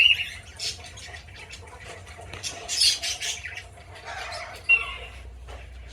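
Small parrots in an aviary squawking and screeching: a loud call right at the start, a longer stretch of harsh squawks around three seconds in, and a short sharp call near the end.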